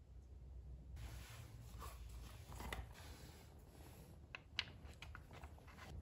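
Faint handling noise as a plastic oil funnel is worked out of a motorcycle engine's oil filler: soft rubbing and scraping, then a few light clicks about four seconds in.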